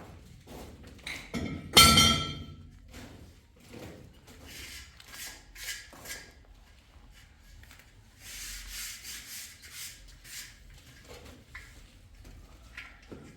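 A hard metallic clang about two seconds in that rings on briefly, followed by two runs of repeated rasping strokes, like work tools on a hard surface.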